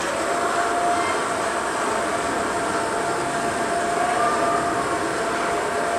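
Omnibot toy robot's drive motors and gear train running as it rolls forward, starting suddenly and then holding a steady whine over a rough mechanical noise.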